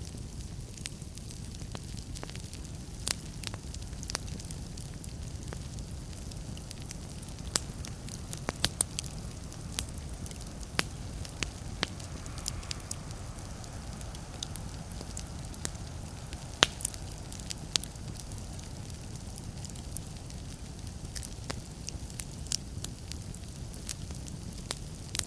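Wood fire burning in a fireplace: a steady low rumble of the flames with irregular sharp crackles and pops of the burning wood, a few louder snaps standing out.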